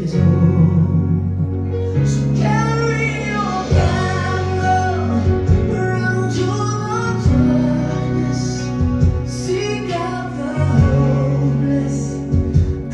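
Music: a song sung by voices, mostly female, over instrumental backing with held bass notes that change every second or two. The lyrics are about a candle, heard just around this passage as "ignites a candle" and "hold out your candle for all".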